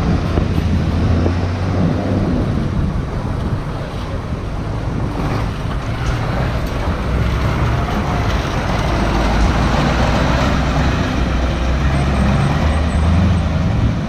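Engines of large buses running as they pull away close by, over steady traffic noise. The deep engine hum is strongest at the start and again near the end.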